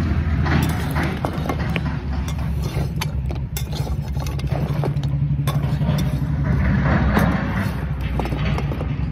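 A steady low engine-like hum throughout, with scattered clicks and scrapes from a metal spatula turning pieces of multani mitti roasting in an iron kadhai.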